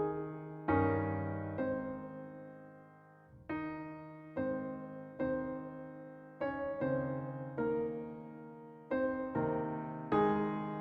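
Slow, gentle solo keyboard music in a piano sound: single chords struck at an unhurried pace, each left to ring and fade before the next.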